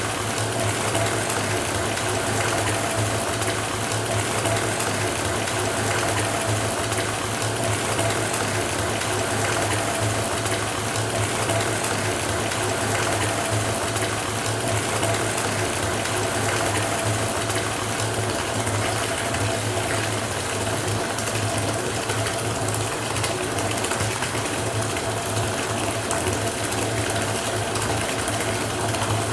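Water running steadily from a tap into a filling bathtub, with a steady low hum under the rush of water.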